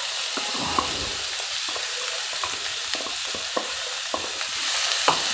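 Finely chopped onions sizzling in hot oil in a pan on high flame, a steady hiss. Light taps and scrapes come through it as a wooden spatula pushes the onions out of the bowl and into the pan.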